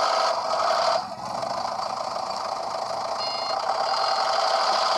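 Heavy-machine sound effect: a steady engine drone with a vehicle warning-beep quality. The level dips about a second in, and a short high beep sounds about three seconds in.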